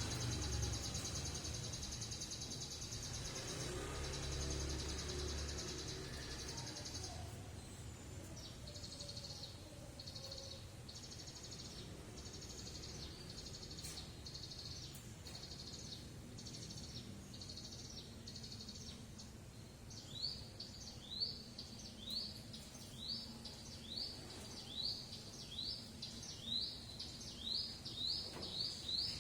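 Ciblek gunung, a prinia, singing. A fast, high, buzzy trill runs for about the first seven seconds, then gives way to a run of short repeated notes about one a second. About two-thirds of the way through come quicker upward-sweeping chirps, about two a second.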